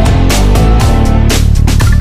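Loud backing music with heavy bass and a drum beat.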